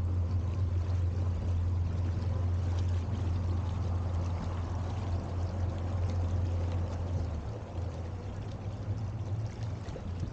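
Motorboat engine running steadily under way, with water rushing past the hull; the engine hum and the wash ease off about seven and a half seconds in as the boat slows.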